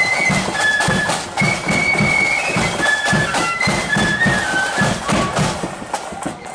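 Marching flute band playing a tune: flutes sounding the melody together over drums beating steady time.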